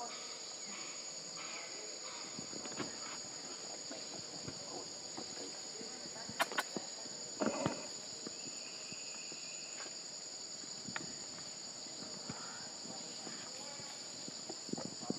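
Steady high-pitched drone of forest insects, holding two fixed pitches throughout, with a few short clicks and knocks about halfway through.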